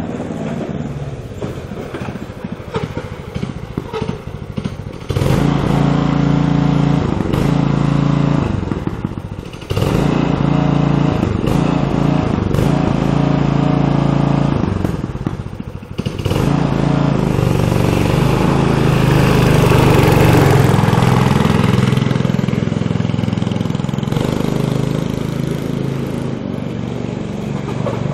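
Go-kart engine running low at first, then revved hard in three long pulls, the last held longest, while its drive belt is slipping.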